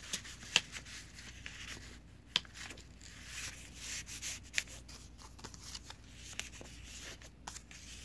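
Paper pages and tucked cards of a handmade journal rustling and sliding as they are turned and pulled out by hand, with a couple of sharp clicks in the first few seconds.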